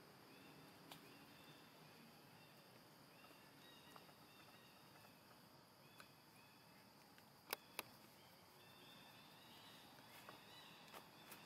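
Near silence: faint outdoor ambience with soft, high chirps recurring throughout, and two sharp clicks in quick succession about seven and a half seconds in.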